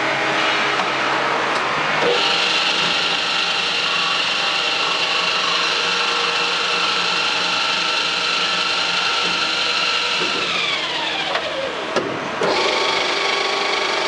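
Horizontal four-axis milling, drilling and reaming machine running, its spindle drives whining steadily, with a stronger high whine joining about two seconds in. About ten seconds in all the tones slide down in pitch together. A click comes about twelve seconds in, and the whine then picks up again.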